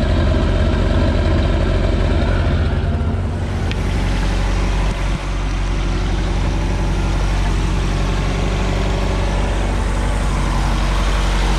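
MerCruiser 3.0-litre four-cylinder sterndrive engine idling steadily, run out of the water on motor muffs.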